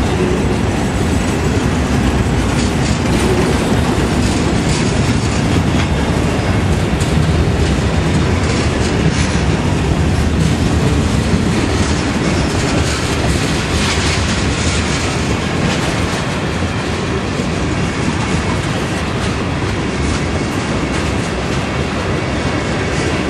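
Boxcars, tank cars and covered hoppers of a freight train rolling past close by: a steady, loud rumble and clatter of steel wheels on the rails.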